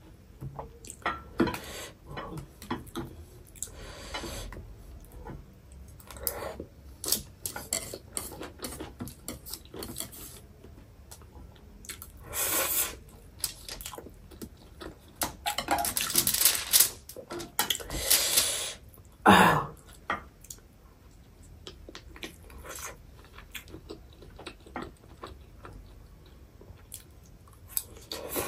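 Metal chopsticks clicking and scraping against a foil-lined tray and a bowl while picking up small scraps of noodles, with chewing in between. A few louder, longer noisy sounds come about halfway through.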